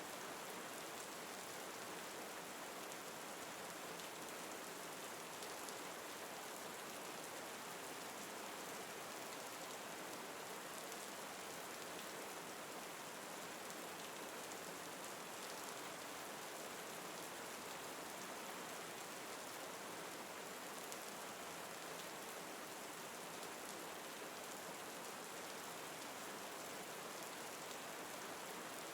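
Steady rain falling, an even hiss that does not change, with faint scattered drop ticks.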